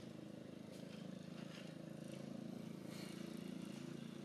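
A steady low engine hum, with a few faint ticks over it.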